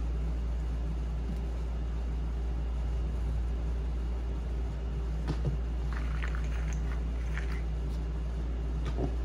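Steady low electrical or machine hum, with a few light clicks and brief rustles of coarse fabric and seat springs being handled about halfway through and near the end.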